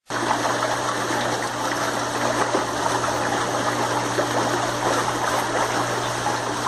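Washing machine pump running with a steady rush of water and a constant low hum, a sound the owner puts down to cavitation. It starts suddenly at full level.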